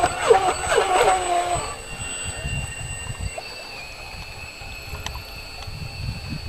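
Radio-controlled model boat's motor whining, its pitch sliding up and down for about the first second and a half, then settling to a quieter, steady high whine. Low wind rumble on the microphone throughout.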